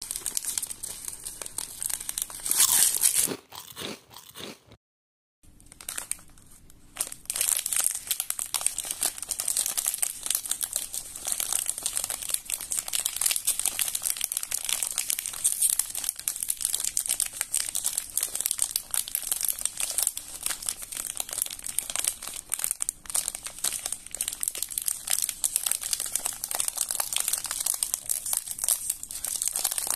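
Plastic biscuit wrapper crinkling as hands squeeze and turn the packet: a dense run of fine crackles that breaks off briefly about five seconds in, then carries on.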